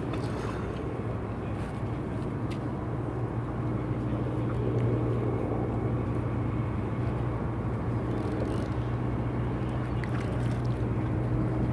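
Steady low engine hum that does not change, over even outdoor background noise, with a few faint ticks.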